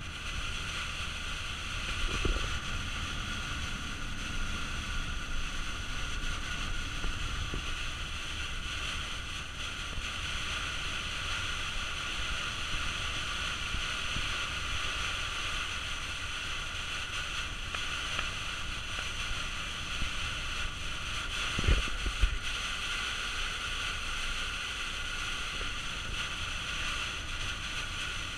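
Steady cabin noise of a Citroën Jumper van driving at speed on a rain-soaked motorway: engine and tyres running through standing water, with rain and spray on the body. Two low thumps break in, about two seconds in and again about three quarters of the way through.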